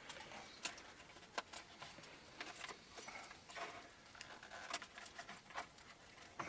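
Faint, irregular clicks and light handling noises of plastic and wiring as a car steering wheel is fitted onto the column and its connectors fed through.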